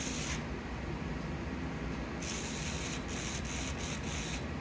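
A skinless Furby toy's small electric motor and plastic gear train whirring in short bursts as its exposed mechanism moves: one burst at the start, then a run of several quick bursts in the second half.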